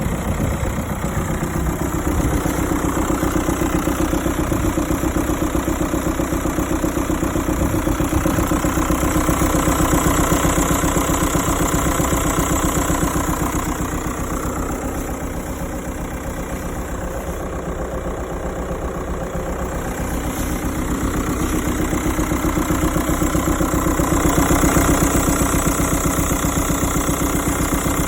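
2006 SEAT Alhambra's 2.0 TDI diesel engine running at idle with a fast, even knocking rhythm; the owner hears an engine noise whose cause he does not know.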